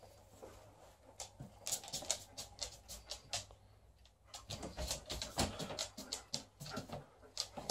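Alaskan Malamute's claws clicking on a hard floor as it moves about, a scatter of light, irregular clicks.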